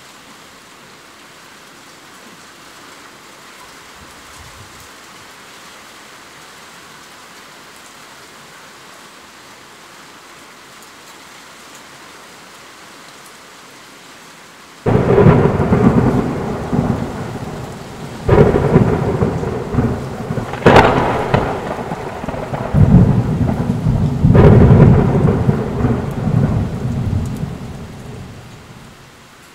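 Steady rain, then about halfway through a sudden thunderclap breaks in. It is followed by a long peal of thunder with four or five further cracks, which dies away near the end.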